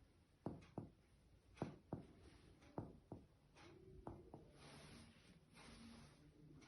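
Finger-on-finger chest percussion: sharp taps in pairs, about a second from one pair to the next, stepping along the paravertebral line to find the lower lung border, where the note turns dull. The tapping stops about three seconds in and gives way to a soft rustle.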